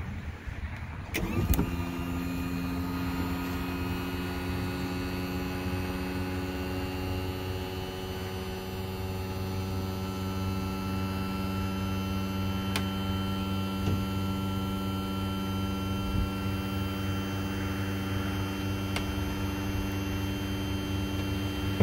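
Electric motor of a powered cabin door on a Cigarette 39 Top Gun powerboat, running with a steady hum as the door opens. It starts with a click about a second in and cuts off suddenly at the end.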